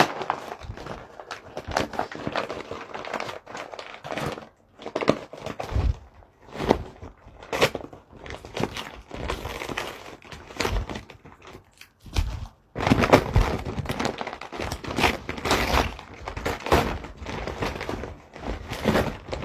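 A gift being unwrapped: paper and packaging torn and crinkled, with scattered clicks and thunks as the package is handled. The rustling is busiest in the second half.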